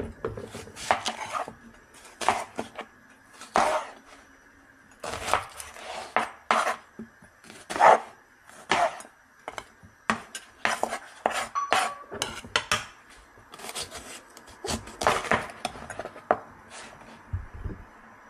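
Chef's knife chopping a red onion and then a green capsicum on a plastic cutting board: irregular sharp knocks of the blade hitting the board, singly and in quick clusters.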